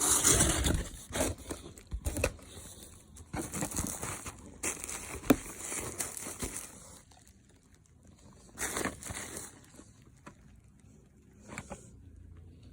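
Crinkling and rustling of packaging being handled, with a few sharp clicks, in several bursts separated by short pauses; loudest in the first second.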